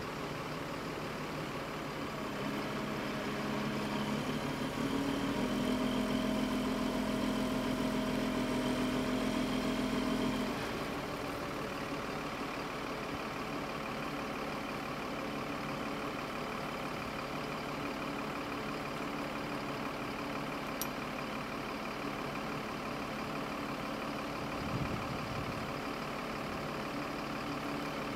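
Diesel engine of a mobile crane running steadily while it lifts a barge, louder a few seconds in and dropping back to a lower, even run about ten seconds in.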